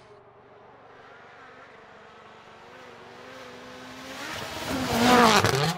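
Hyundai WRC rally car approaching at speed and passing close by: its engine grows steadily louder over the last few seconds, peaks, and drops sharply in pitch as it goes past near the end.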